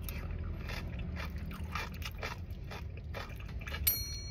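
Close-up eating sounds: a mouthful of siomay being bitten and chewed, with a metal spoon scraping the plate. Near the end the spoon strikes the ceramic plate with a sharp clink that rings briefly.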